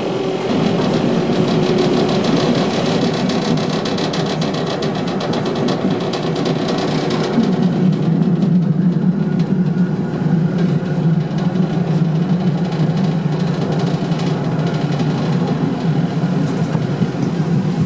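Tram running along the track, heard from the driver's cab: a steady rumble of wheels and motor with a fast rattle, the low rumble growing stronger about seven seconds in.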